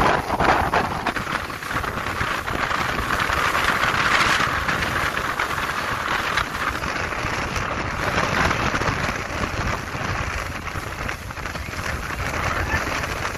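Wind buffeting the microphone over a steady rush of water hissing and splashing along the hull of a small motorboat under way through choppy sea. The hiss swells for a couple of seconds a few seconds in.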